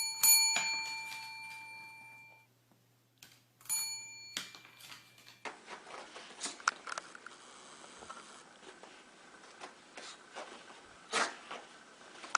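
A small bell is struck twice in quick succession and rings out for about two seconds, then is struck twice more about four seconds in. After that comes faint scratching and clicking.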